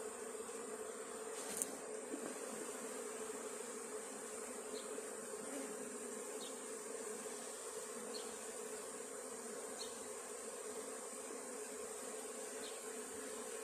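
Honeybees from a small swarm buzzing steadily at a nucleus hive they have just been shaken into, a continuous hum at one even pitch. There is a single sharp click about a second and a half in.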